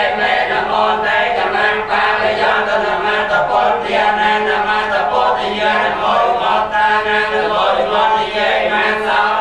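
A group of Theravada Buddhist monks chanting together in unison, a steady, continuous recitation without pauses, picked up through handheld microphones.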